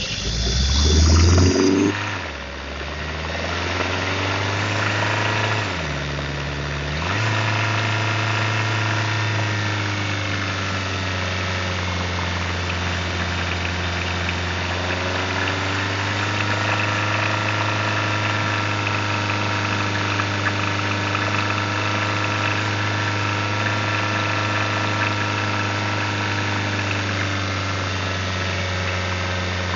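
The Hyundai Tucson hybrid's 1.6-litre turbo petrol four-cylinder starts with a quick rev flare, then runs steadily, with a brief dip in engine speed about six seconds in. This is the car in which the owner hears a rattle under load that has become quieter after the service but is still present.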